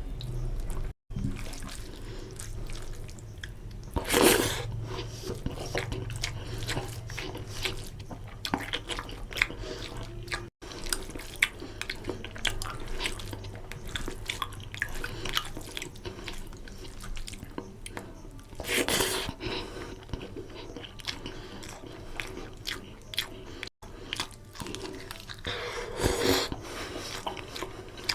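Close-miked eating sounds: a person chewing and smacking on rohu fish curry with rice, with many small wet clicks. There are a few louder, noisier moments about four, nineteen and twenty-six seconds in, and three brief cuts to silence.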